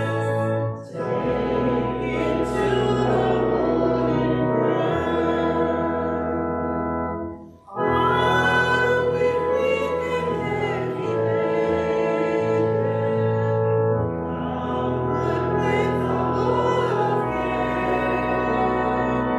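A hymn sung to organ accompaniment, with long held organ notes under the voices. The music breaks off briefly about seven and a half seconds in.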